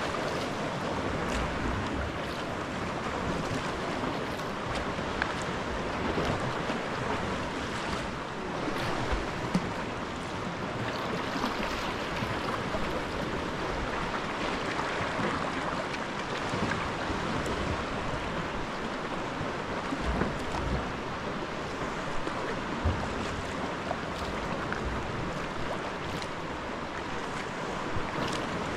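Sea waves washing against rocks at the foot of sea cliffs: a steady rush of water with a few small splashes, heard from a kayak on the water, with some wind buffeting the microphone.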